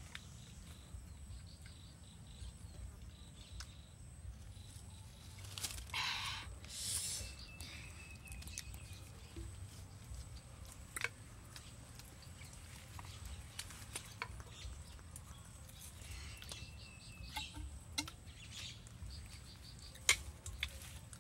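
Quiet outdoor ambience with faint bird calls, and small clicks and rustles from people handling bamboo tubes and eating. A louder rustle comes about six seconds in.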